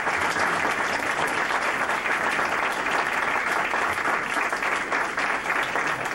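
A roomful of diners applauding steadily for an award recipient coming up to accept his award.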